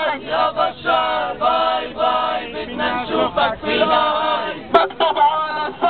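Protesters chanting slogans in Arabic, led by a man calling through a megaphone. A sharp click a little under five seconds in.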